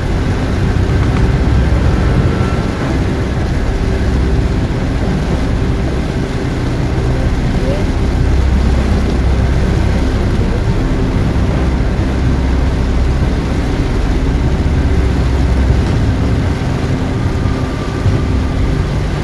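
Heavy rain pelting a car's roof and windshield, heard from inside the cabin over the steady low rumble of the car driving on a wet road.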